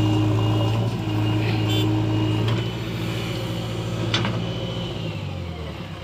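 JCB 3DX backhoe loader's diesel engine running under hydraulic load as the backhoe dumps a bucket of soil into a tipper truck and swings back, easing off about halfway through. There is a sharp clank about four seconds in.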